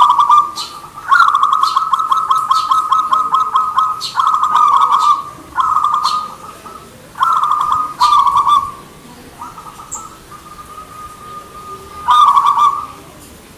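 Zebra dove (perkutut) cooing in repeated phrases of fast, rolling, trilled notes. The longest phrase starts about a second in and runs about three seconds, followed by shorter phrases with brief gaps, a fainter one, and a last loud phrase near the end.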